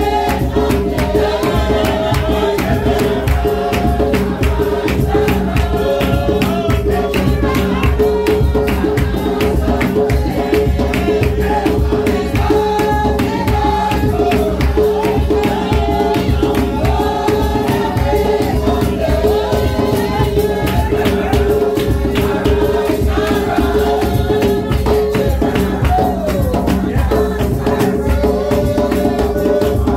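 A congregation singing a hymn together, with shaken rattles and a tambourine keeping a quick, steady rhythm and a steady held tone underneath.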